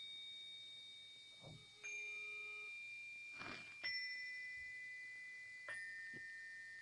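Faint bell-like chime tones. A new note is struck about every two seconds, three times at different pitches, and each rings on and slowly fades while the earlier one still sounds.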